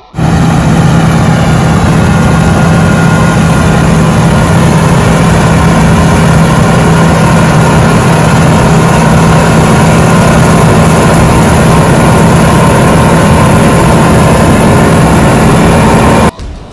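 Heavy diesel farm machinery running steadily at close range, a loud, even drone with a steady low hum that does not change in pitch. It starts and cuts off suddenly.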